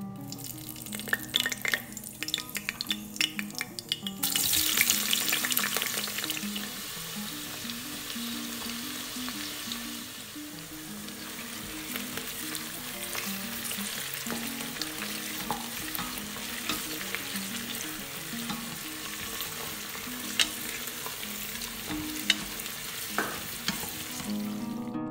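Sliced onions, green chillies and a bay leaf sizzling in hot oil in a stainless steel pressure cooker, stirred with a wooden spatula that clicks and scrapes against the pan. The sizzle suddenly gets louder about four seconds in and then holds steady, with a few sharp spatula taps near the end.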